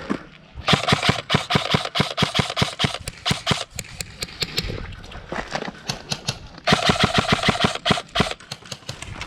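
Airsoft guns firing: two long bursts of rapid fire, each about a second and a half, near the start and about two-thirds of the way through, with scattered single shots in between.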